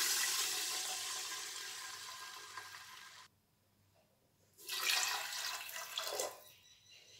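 Water poured from a steel bowl into an aluminium pressure cooker, twice: a first pour of about three seconds that fades away, then after a short gap a second, shorter pour about halfway through.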